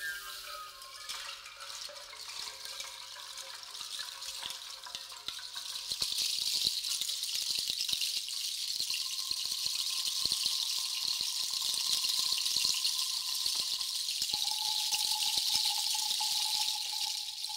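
A shaken bundle of leafy grass stalks rustles softly. From about six seconds in, a hand-shaken cluster of small hanging metal pieces gives a dense, shimmering jingle. A held tone sounds under it, first higher, then a little lower near the end.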